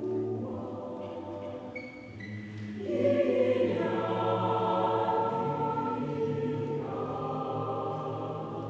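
Mixed chamber choir singing a cappella in sustained chords. The sound thins and quietens about two seconds in, then swells back fuller and louder about three seconds in.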